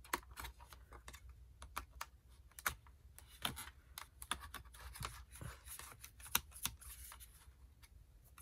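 Irregular light clicks and taps, with brief scraping, from the small plastic and metal parts of an HP Pavilion dv5 laptop being handled as its RAM module is released and pulled out.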